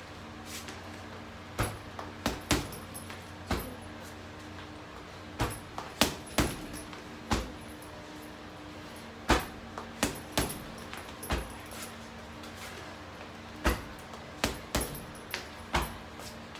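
Boxing-gloved punches and kicks striking a heavy punching bag: about twenty sharp thuds in irregular runs of two to four. A light metallic jingle follows many of the hits, from the bag's hanging chain, over a steady low hum.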